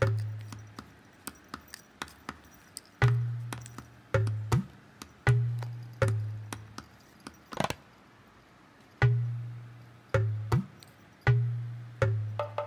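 Light, percussive background music: short taps and low notes that die away, in a bouncy, uneven rhythm with a brief pause partway through.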